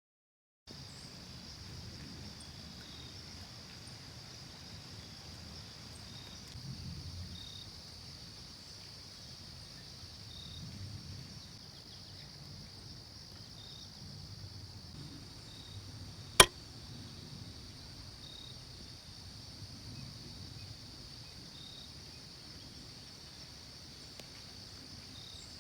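Woodland ambience: a steady high-pitched insect trill over a low rumble of breeze, broken once by a single sharp click about two-thirds of the way through.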